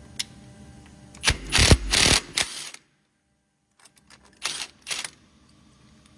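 Cordless impact wrench hammering in a burst of a second or so, spinning off the nut that holds a steel starter cup on a bolt in a lathe chuck. Two short, sharp sounds follow a couple of seconds later as the cup is taken off.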